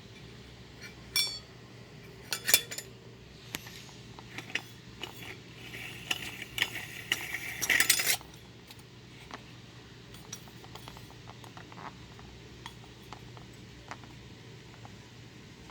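Small metal and glass parts of a ceiling fan light kit clinking and rattling as they are handled. There are a few sharp clinks early on, a denser clatter that builds to its loudest about eight seconds in, then only scattered light ticks over a faint steady hum.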